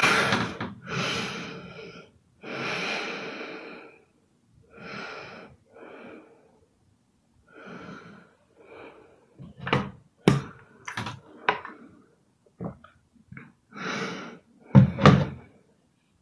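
A woman's breathy snoring, a string of hissing breaths about a second long with short silences between. Past the middle come several sharp knocks and clicks, and near the end a loud thump.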